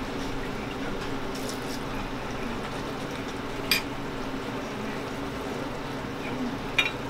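Hard-candy syrup of sugar and corn syrup boiling in a copper kettle, a steady bubbling hiss, while flavoring oil is poured in. Two sharp clicks cut through it, one midway and one near the end.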